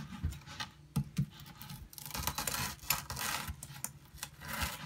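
Large kitchen knife sawing down through a crisp puffed-rice and marshmallow bar on a wooden cutting board: the crunchy puffed rice crackles irregularly as the blade works through, with a couple of sharp clicks about a second in and thicker crackling in the second half.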